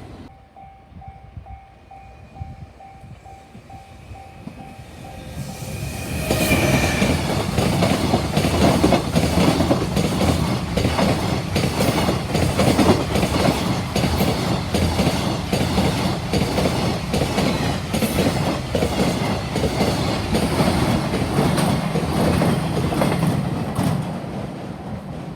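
A level-crossing alarm ringing with a steady electronic tone, then a long freight train passing from about six seconds in: a long, loud run of wheels clacking over rail joints, fading near the end.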